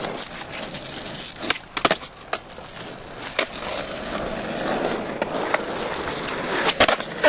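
Skateboard wheels rolling on rough asphalt, with several sharp clacks of the board scattered through, the loudest near the end.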